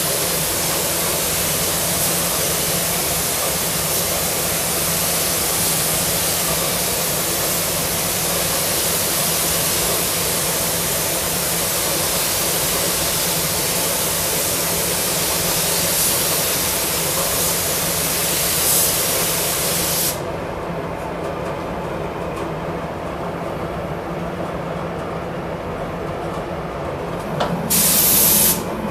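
Compressed-air paint spray gun hissing steadily while spraying car body panels. It cuts off abruptly about twenty seconds in, leaving the steady drone of the paint booth's ventilation. A short blast from the gun comes near the end.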